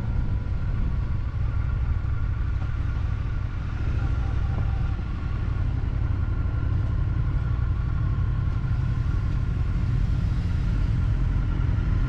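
Motorcycle engine running with a steady low rumble, picked up by a camera mounted on the bike.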